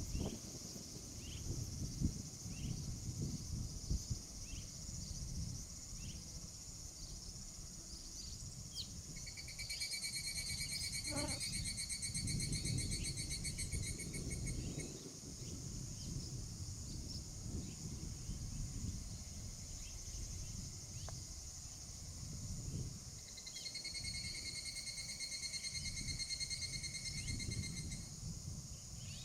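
Steady insect chorus of crickets, joined twice by a pulsing buzzy insect trill lasting about five seconds each time, over a fluctuating low rumble. Faint short high chirps are scattered through it, typical of red-rumped swallow calls from the flock.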